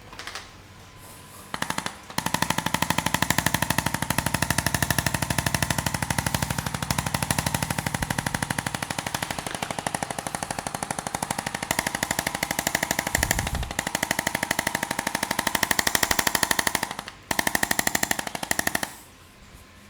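Electric percussion massager running, a rapid, even pulsing with a motor whine. It starts about two seconds in, stops briefly near the end, restarts, then cuts off.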